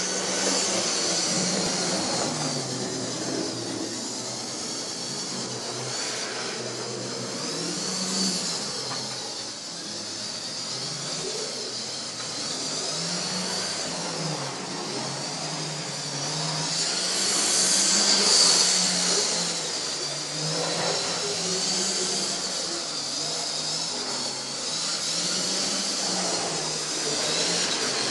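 Model trains running on the layout: small electric locomotive motors whirring with a high whine that rises and falls, loudest a little past the middle, over the hum of the trains on the track.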